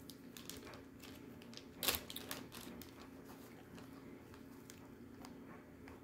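Clear plastic bag holding baked clay pieces being handled: crinkling and a scatter of small clicks, with one louder crackle about two seconds in, then quieter rustling.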